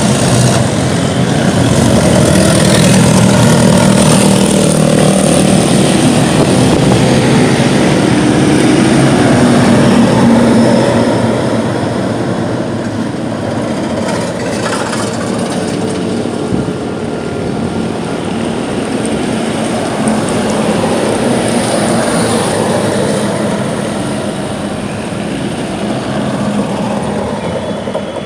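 Road traffic: motor vehicle engines running as motorcycles and pickup trucks pass along the street. It is louder for the first ten seconds or so, then a little quieter.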